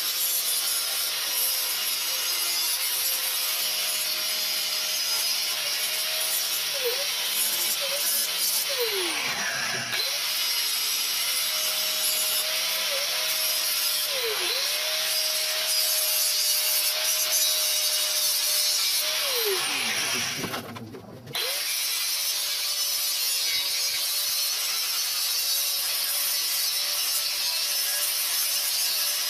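Corded angle grinder grinding rust off a steel bus-tailgate frame: a harsh scraping grind over the motor's steady whine, which dips each time the tool is pressed into the metal. About ten seconds in it briefly winds down and picks up again. Near twenty seconds it winds down, stops for a moment, then starts again and runs on steadily.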